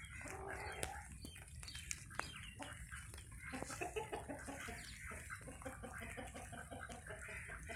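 Domestic ducks calling with short quacks, breaking into rapid runs of repeated quacks about three and a half seconds in and again from about five and a half seconds.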